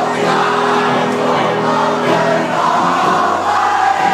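Live band playing loudly at a concert, with the crowd singing along.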